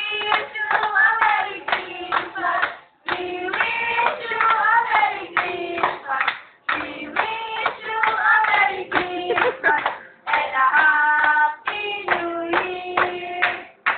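A small group of young voices, mostly girls, singing together while clapping along, in phrases broken by short pauses.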